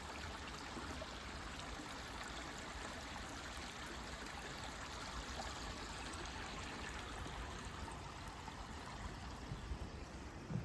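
Forest stream flowing and trickling steadily, a continuous rush of water. A few soft knocks come near the end.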